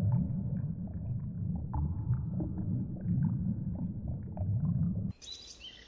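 Underwater ambience: a steady, muffled low rumble of water with faint scattered clicks and short squeaks. It cuts off suddenly about five seconds in, giving way to faint bird chirps.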